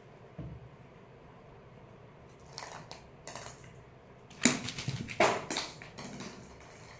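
Kittens scuffling and pouncing on a tiled floor: a few scattered clicks and scrapes, then two louder clatters about four and a half and five seconds in.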